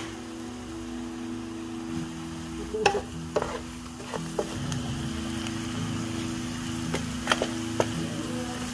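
Onions and mushrooms sizzling in a frying pan as they are stirred with a wooden spatula, with several sharp knocks and scrapes of the spatula against the pan.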